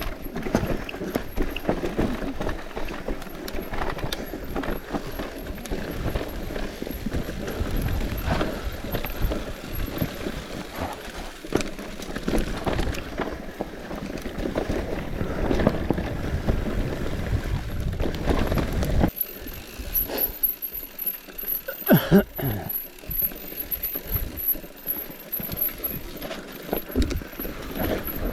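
Mountain bike rattling and knocking over a rough dirt trail, with wind buffeting the microphone. About nineteen seconds in the wind noise drops, leaving sharper knocks and a high, fast ticking buzz from the coasting freewheel hub.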